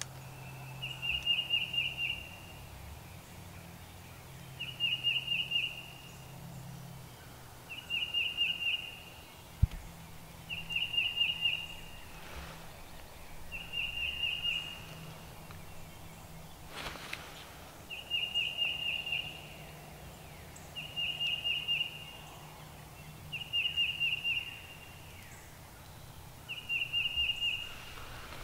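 A songbird singing the same short phrase of several quick high notes over and over, about every three seconds, over steady outdoor background noise.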